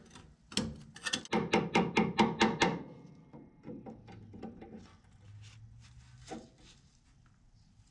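Hand-tool work on a vintage Jeep's steering linkage: a quick run of sharp metallic clicks, about four a second, then fainter scattered clicks and a single tap near the end.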